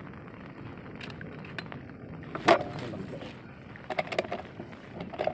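A single sharp, suppressed shot from a Predator Bocap PCP air rifle about two and a half seconds in, followed about a second and a half later by a few light metallic clicks.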